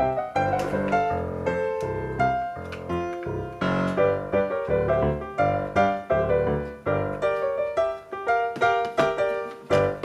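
Background music: a light, bouncy piano-led tune with short, plucked-sounding notes.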